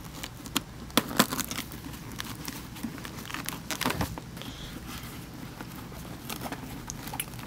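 Hands handling a motorcycle helmet's fabric-covered liner padding, with scattered light clicks and rustles as the padding is pressed and snapped back into place over the speaker wire.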